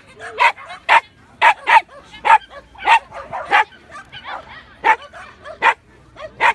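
A dog barking repeatedly in short, sharp, high barks, about a dozen of them at roughly two a second.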